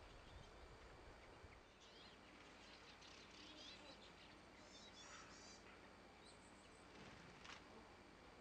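Faint, high bird chirps, a few short clusters over a quiet steady hiss.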